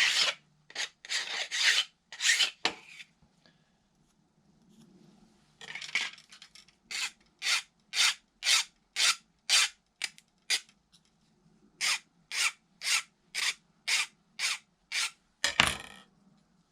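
Hand file worked in short back-and-forth strokes, taking off a burr. A few strokes, a pause, then an even run of about two strokes a second, with one longer, heavier stroke near the end.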